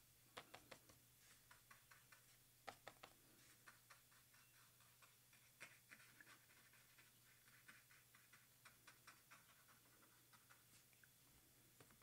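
Faint ticks and light scratching of a brush pen tip dabbing and stroking on card paper, over a steady low electrical hum.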